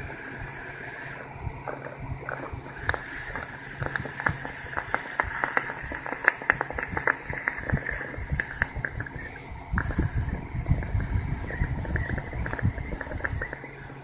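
Water bottle bubbling and gurgling like a bong: a quick run of crackling clicks over a hiss of air, turning to a lower rumbling gurgle near the end.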